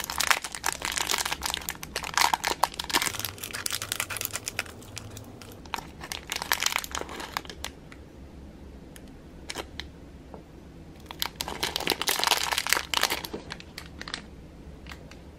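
Thin clear plastic bags crinkling as hands unwrap two small plastic toy melons. The crinkling comes in two bursts, a long one over the first half and a shorter one near the end, with a few light ticks between them.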